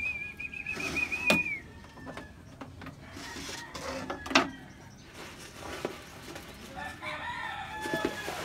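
A rooster crowing, with other fowl calls around it and two sharp knocks, the louder one about four seconds in.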